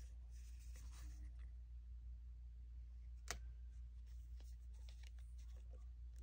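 Die-cut stickers handled and flipped through by hand: soft paper rustling at first, one sharp click about three seconds in, then a few light ticks, over a steady low hum.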